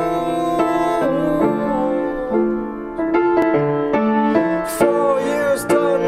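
Music led by piano: a run of struck notes over held lower tones.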